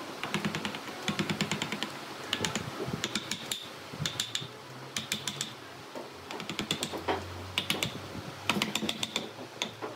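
A wooden mallet tapping a chisel into a dry tree stump, chipping away the wood. It comes as quick runs of light, sharp taps, several a second, separated by short pauses.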